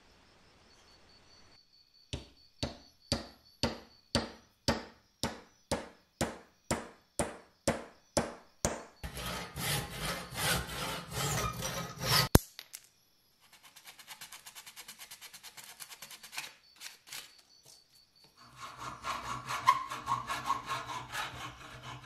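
About a dozen sharp knocks, roughly two a second, driving a wooden wedge into a hammer's eye. Then a handsaw rasps back and forth, cutting off the protruding end of the wooden wedge. Near the end a hacksaw saws through a steel rod clamped in a bench vise, with a ringing metallic note.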